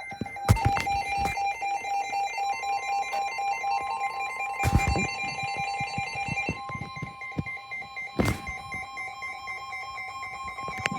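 Electronic emergency-alert tones: a rapidly pulsing high beeping, joined about two and a half seconds in by a steady tone. Three loud clicks break through it, about half a second, five seconds and eight seconds in.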